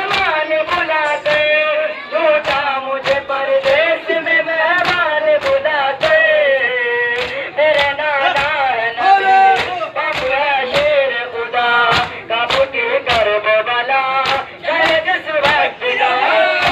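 Men singing a noha, a Shia mourning lament, over a steady beat of open hands slapping chests in matam, about three slaps every two seconds.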